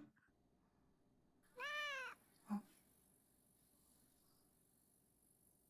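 A cat meowing once, a single short meow that rises and then falls in pitch about one and a half seconds in, followed by a brief faint chirp; otherwise near silence.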